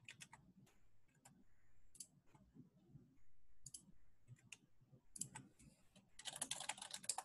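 Faint computer keyboard keystrokes: scattered single clicks, then a quick run of typing about six seconds in.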